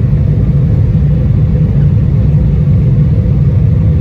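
Embraer 175's twin turbofan engines at takeoff thrust, heard from inside the cabin as a loud, steady, deep rumble with a faint steady hum above it.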